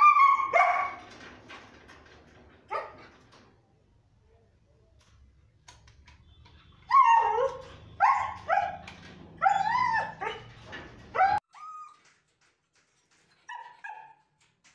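German Shepherd barking, whining and yipping in short bursts while begging for food. There is a burst right at the start, another at about three seconds, and a run of barks and whines from about seven to eleven seconds.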